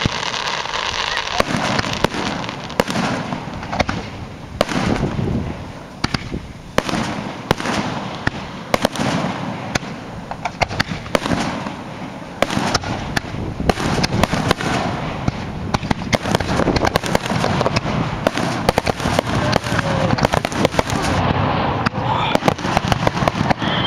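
Aerial fireworks display: shells bursting and crackling one after another, the bangs coming thicker and faster in the second half.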